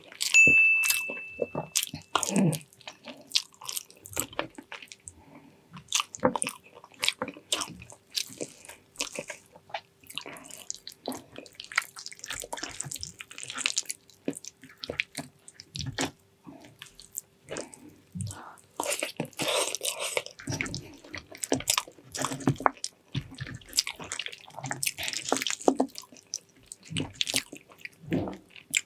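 Close-up mouth sounds of eating soft braised pig's trotters: chewing, biting and sucking at the meat, with wet smacks and lip clicks. About half a second in, a short ringing clink.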